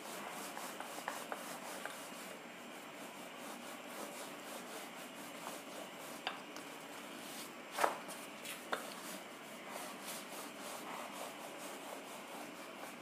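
Wooden rolling pin rolling out pizza dough on a floured countertop: a faint, steady rubbing, with a few light knocks, the clearest about eight seconds in.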